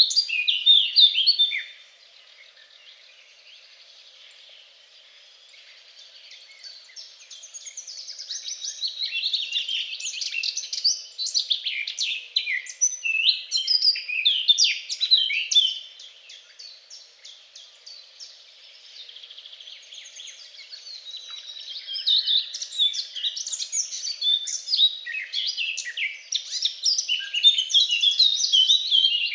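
Songbirds singing: phrases of rapid high chirps and trills that come in waves, breaking off into quieter gaps about 2 s and 16 s in before the song builds again.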